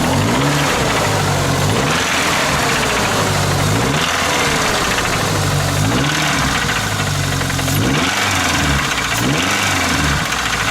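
Pickup truck engine with a rod-type knock being revved up and down in a series of short blips, before any oil stabilizer was added.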